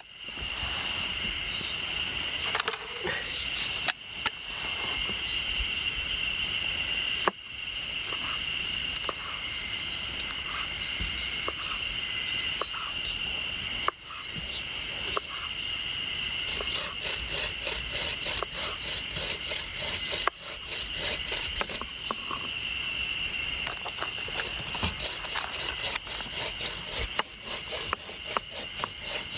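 Steady high-pitched buzzing of insects in the background. About halfway through, a fast, even scraping rhythm starts.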